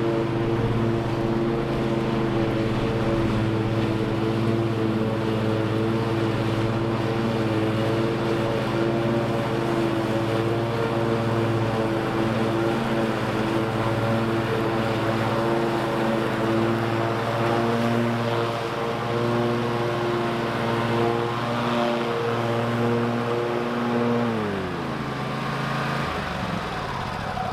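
Toro TimeCutter MyRide zero-turn mower engine running at a steady speed while its deck cuts through thick, tall field grass, holding its RPM without bogging down under the load. Near the end the engine pitch falls as it winds down.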